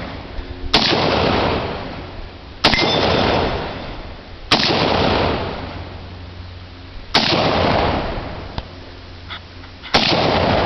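A semi-automatic gun fired five times, one shot about every two to three seconds, each crack followed by a long echoing decay.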